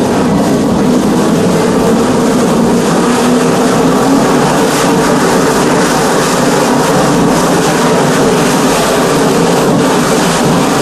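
Breddo 300-gallon liquifier running, its high-speed mixing motor and blade drive giving a loud, steady machine noise.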